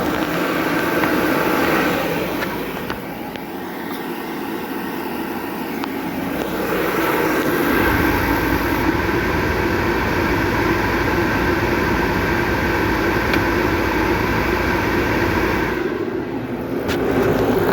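Stain spray equipment running steadily with a constant hum. It gets louder with a deeper rumble from about eight seconds in and dips briefly near the end.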